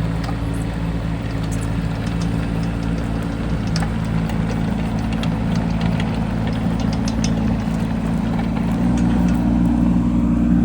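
Bobcat E10 mini excavator's small diesel engine running steadily, picking up a little in pitch and loudness about nine seconds in.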